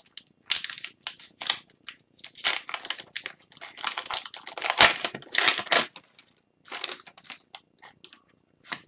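Foil wrapper of an Upper Deck hockey card pack crinkling and tearing as it is ripped open: a dense run of sharp crackles over the first six seconds, then fewer, softer crackles as the cards are taken out.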